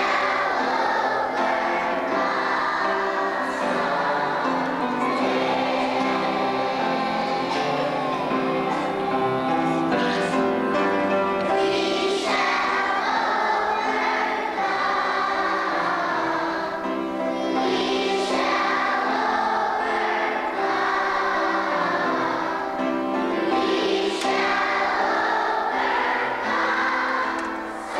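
A choir singing, in long sustained phrases that break and start again every few seconds.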